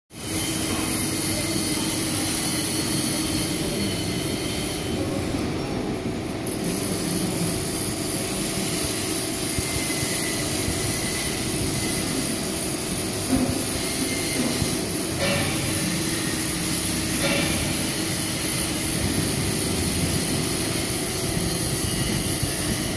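Hydraulic CNC press brake (200-tonne, 6-metre) running its hydraulic power unit: a steady loud machine noise with a low hum, and two short clicks in the second half.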